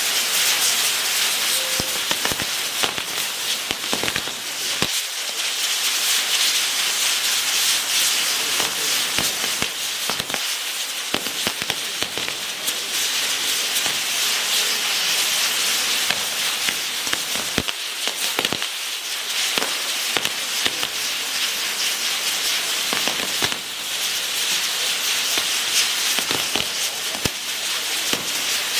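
Fireworks going off continuously: a dense steady hiss with a constant stream of sharp crackles and pops.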